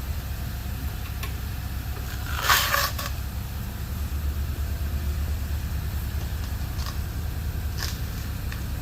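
A steady low mechanical hum like an idling engine, with a short burst of hiss about two and a half seconds in and a few faint light clicks near the end.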